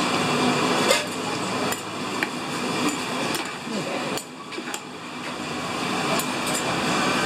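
Steady market-stall background noise, with scattered sharp knocks and clinks at irregular intervals.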